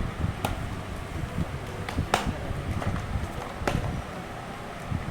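Small hand tools being handled during laptop repair: three sharp clicks about a second and a half apart, over a low, uneven rumble.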